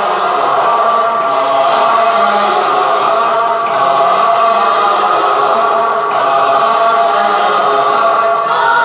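Instrumental backing music of a Hindi film song, with held synthesizer chords that sound choir-like over low bass notes and a soft tick about once a second; nobody sings over it.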